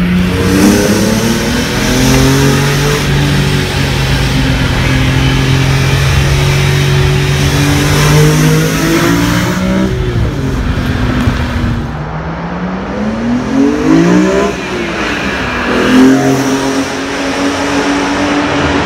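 BMW E46 M3's 3.2-litre S54 inline-six with a Supersprint header-to-muffler exhaust and a CSL airbox, heard from inside the cabin while driving. The engine note holds fairly steady under load for the first several seconds. In the second half the revs rise and fall sharply several times, then settle to a steady note.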